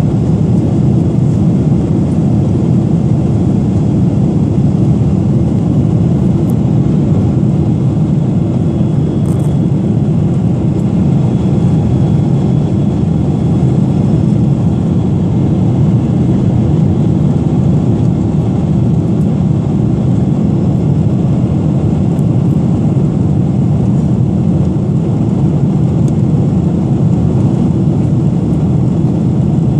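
Steady low rumble and rush of a Boeing 777-300ER's GE90 jet engine and airflow, heard inside the cabin from a seat beside the engine in flight.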